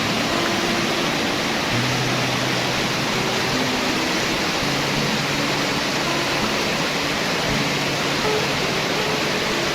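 Steady rushing of a waterfall, with background music of low held notes underneath.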